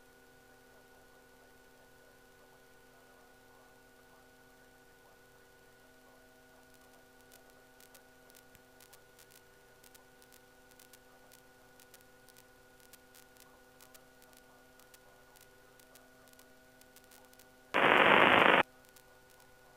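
Aircraft radio and intercom feed: a faint, steady electrical hum with scattered faint clicks, then, about 18 seconds in, a loud burst of radio static lasting under a second.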